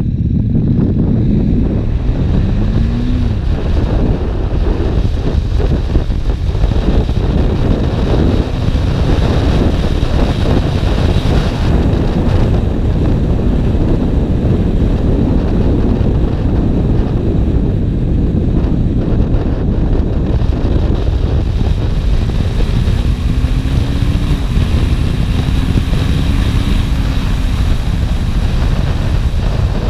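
Wind buffeting the microphone while riding a KTM 1290 Super Duke R, its V-twin engine audible underneath. The engine's pitch climbs in the first few seconds and again about three quarters of the way through.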